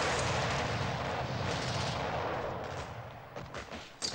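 Artillery shell exploding on a battlefield in a film soundtrack: a dense, rumbling blast noise that dies away over the last two seconds, with a few sharp cracks near the end.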